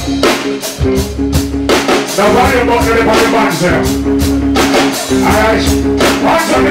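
Live reggae band playing: held bass and keyboard chords over a steady drum beat, with a man's voice singing over it at moments.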